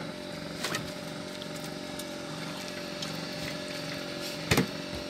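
A fishing boat's engine running steadily with a low hum, and a sharp knock about four and a half seconds in.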